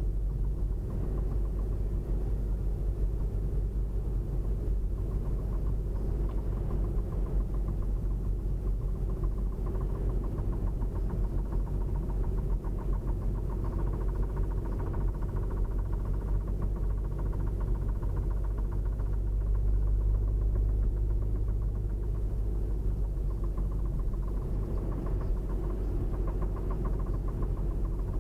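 Engine running steadily with a fast, regular knock through it.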